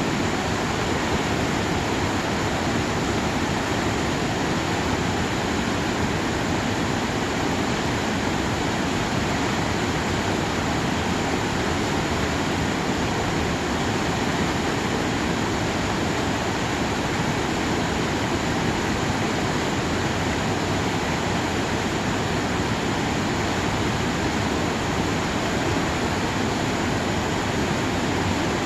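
Mountain stream running high after rain, a steady, even rush of flowing water.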